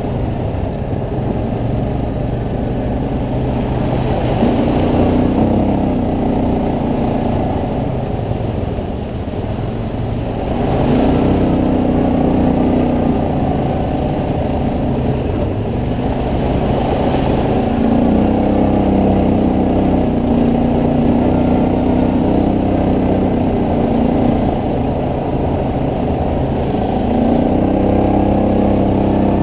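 ATV engine running under way, its pitch climbing and easing off again about four times, every five or six seconds.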